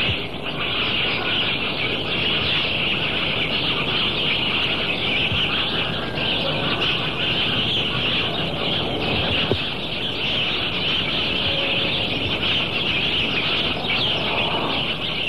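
Dense chorus of many small birds chirping together, a steady mass of high chirps that starts and cuts off abruptly.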